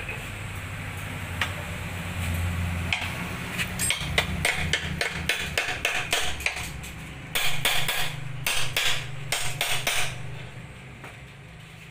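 Hammer striking metal in quick, irregular blows. They grow denser and louder from about seven to ten seconds in, then stop.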